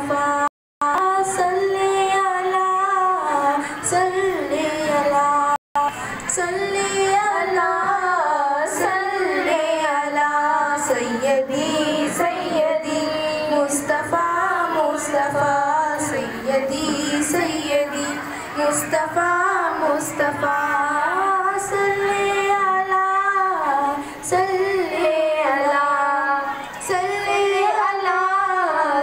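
A girl reciting a naat, singing a devotional Urdu-Hindi poem in a flowing melody into a microphone, with no instruments. Her voice cuts out for a split second twice, just after the start and about five seconds in.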